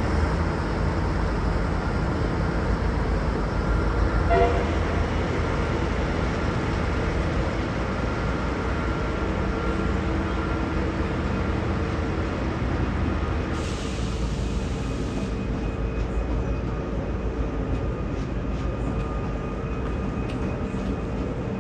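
V/Line Sprinter diesel railcar train running steadily: a continuous low rumble with a steady hum. A short tone sounds about four seconds in, and a burst of hiss a little past the middle.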